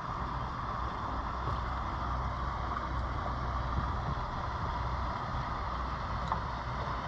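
Steady low rumble with an even hiss, with no distinct events apart from a faint tick about six seconds in.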